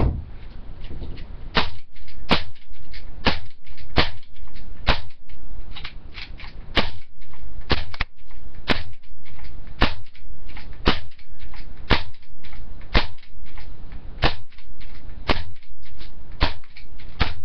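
CO2-powered HK USP airsoft pistol firing a string of single shots, each a sharp pop, roughly one a second at a slightly uneven pace.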